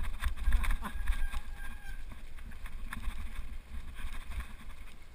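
Mountain bike rolling downhill on a loose gravel road: tyres crunching over stones and the bike rattling with short knocks, under a heavy wind rumble on the microphone.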